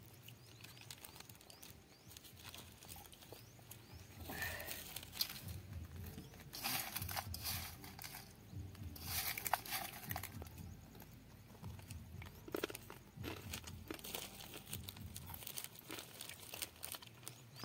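Dry, crunchy snack mix rustling and crackling as fingers pick through it in a steel plate, in a few separate bursts.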